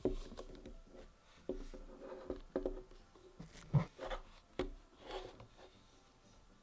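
Hands handling and fitting together the parts of a microphone desk stand: a run of irregular knocks, clicks and rubs, the loudest about four seconds in, dying away after about five seconds.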